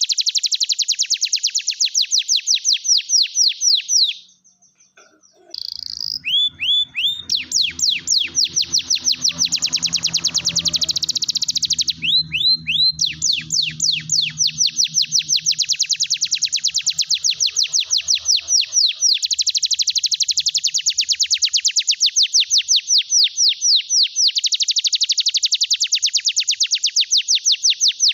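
Domestic canary in full song: long, high-pitched rolling trills of very rapid repeated notes, broken by a short pause about four seconds in and a brief change of phrase around twelve seconds. A lure song for setting canaries that have stopped singing back into song.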